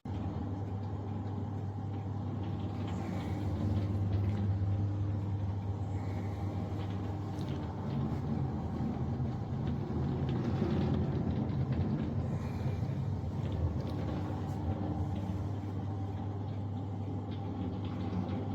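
Countertop dishwasher running, a steady low motor hum that swells slightly a few times.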